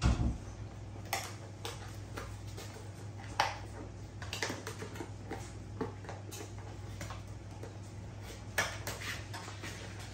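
Cardboard box and the packaged dog toys and chews inside it clattering and rustling as two puppies root through it: a thump at the very start, then scattered light knocks and clicks, the sharpest about three and a half seconds in and near the end, over a steady low hum.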